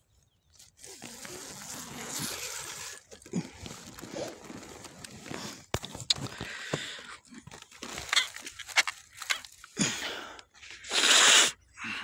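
Close rustling and handling of a dew-wet mosquito net and quilt, with scattered sharp clicks and a loud, short scraping rush near the end.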